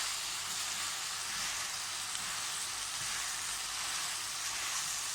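Finely cut meat with onion and peppers frying in a pan, a steady sizzle as it caramelises.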